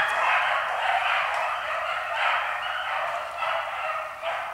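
A pack of hounds in full cry, many dogs baying and yelping together without a break as they run a hare's track, swelling and dipping as they go.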